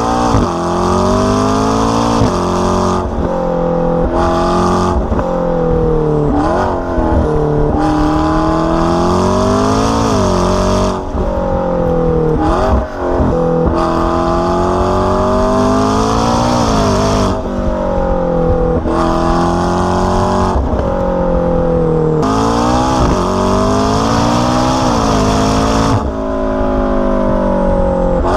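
McLaren 650S twin-turbo V8 through an AWE exhaust, being driven hard. Its pitch climbs again and again under acceleration and breaks off sharply several times, as at gear changes, with stretches where it falls as the car slows.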